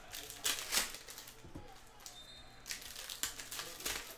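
Foil wrapper of a Panini Hoops basketball card pack crinkling and tearing as the pack is opened by hand, in several short bursts.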